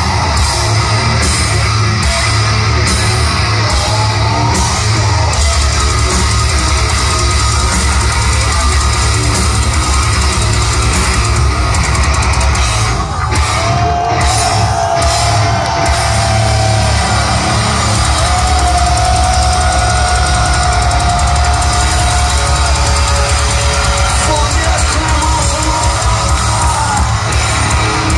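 A heavy metal band playing live at full volume, heard from within the crowd: distorted guitars, bass and drums, with fast drum strokes in the first few seconds and long held high notes through the middle.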